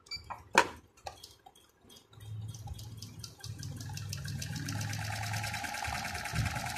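A few clicks, one of them sharp, then about two seconds in a Janome Secio 8200 sewing machine starts stitching free-motion embroidery. It runs at a fast, even needle rhythm, with a steady motor whine that grows in a couple of seconds later.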